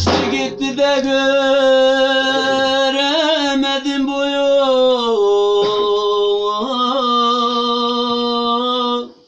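A man singing a Central Anatolian bozlak unaccompanied, holding one long wordless note with a wavering pitch. The note steps down about five seconds in, climbs back near seven seconds, and breaks off just before the end.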